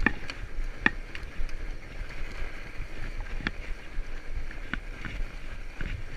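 Fat-bike tyres rolling over a packed-snow trail, a steady low rumble with a few sharp clicks and knocks from the bike over bumps.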